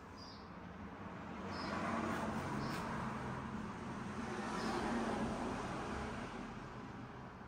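Rumble of a passing road vehicle. It swells about a second in, holds for several seconds and fades away near the end.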